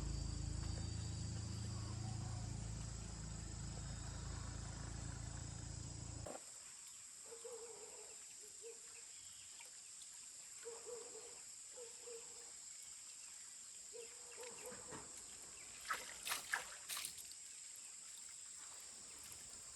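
Insects chirring steadily in quiet countryside. For the first six seconds a low motor hum slowly fades, then stops abruptly, and a few sharp clicks come near the end.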